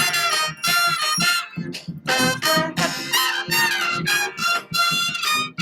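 Street brass band playing in short, detached phrases, with horns such as trumpets and trombones and one held lower note about three seconds in.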